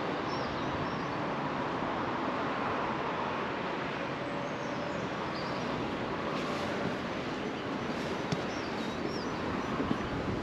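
Steady rush of water running down the stone steps into a reservoir's bellmouth overflow shaft, with a bird chirping briefly near the start and again near the end.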